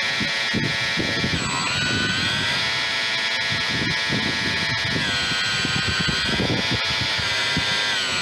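RC model boat's outboard motor running with a high whine that dips in pitch and climbs back about a second and a half in, again about five seconds in, and near the end, as the throttle eases and opens. Water splashes and churns against the small hull underneath.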